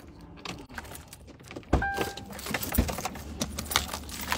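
Clicking, rattling and knocking of small objects being handled inside a car, with two dull thumps and a brief electronic beep about two seconds in.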